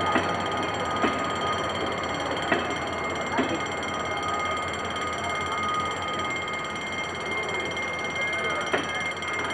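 Passenger coaches rolling slowly over a level crossing, their wheels clicking over the rail joints at irregular intervals, with a steady level-crossing warning alarm ringing throughout.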